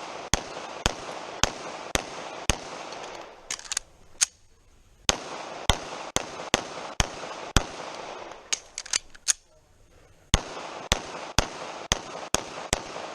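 A 9mm Rock Island 2011 pistol firing fast strings of shots, about two dozen in all at roughly two a second. There are two short breaks of about a second between strings.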